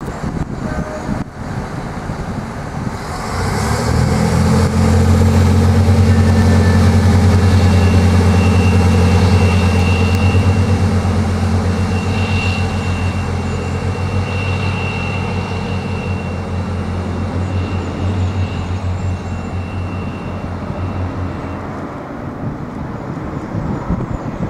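Irish Rail 29000 class diesel multiple unit pulling away under power: a steady, deep engine drone sets in about four seconds in and slowly fades after its peak. A thin high whine comes and goes over it.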